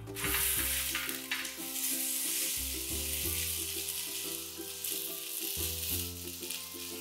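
A whole slab of pork belly searing in hot oil in a wide pan, sizzling steadily, loudest in the first second.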